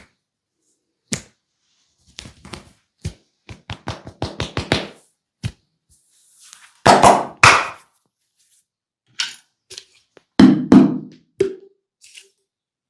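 Hands tapping and slapping on a person's head and body in a massage: scattered taps, a quick run of them in the middle, then a few heavier slaps, the loudest about seven seconds in.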